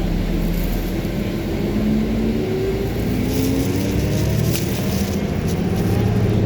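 City transit bus pulling away and accelerating: the engine and drivetrain give a pitched whine that climbs steadily over several seconds over a low rumble, with short hissy bursts partway through.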